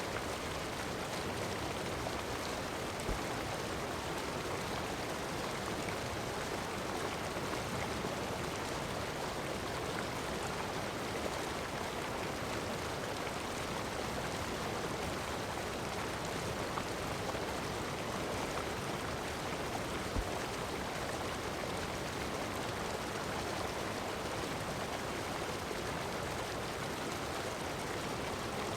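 Heavy rain falling on sand with ocean surf, a steady, even hiss with no distinct wave surges. Two faint ticks, one about three seconds in and one about twenty seconds in.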